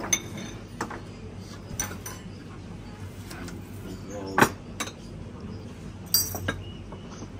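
Tableware clinking at a breakfast table: a series of separate clinks of plates, cutlery and glasses, some with a short ringing. The sharpest comes about halfway through and a quick cluster near the end, over faint voices.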